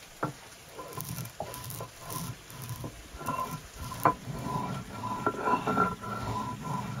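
A round hand-held stone pressed and rolled over peppercorns and coarse salt on a flat slate slab, crushing them with gritty crunching and scraping. The stone knocks on the slab just after the start and most loudly about four seconds in.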